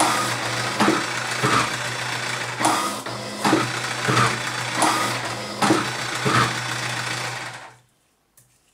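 Z45 bis electric cigarette-tube filling machine running: a steady motor hum with pairs of sharp strokes about every second and a half as the piston pushes tobacco into the tube and draws back. It stops suddenly near the end.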